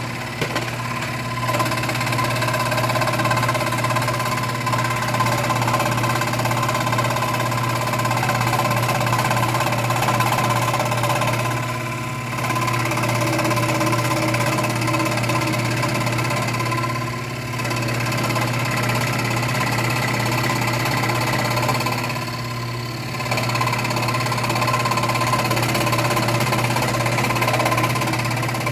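WEN electric scroll saw running, its blade stroking up and down as it cuts through pine. The sound is steady, with brief dips in level three times.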